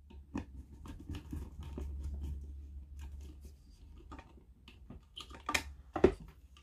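Small screwdriver working the screws of a plastic terminal-block connector strip, with scattered clicks and scrapes of handling the plastic lamp housing. Two louder knocks come near the end.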